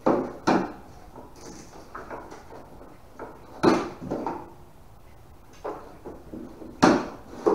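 Thin plywood boat panels knocking and scraping as they are handled and fitted together for a stitch-and-glue hull: about five irregular wooden knocks, the loudest near the end.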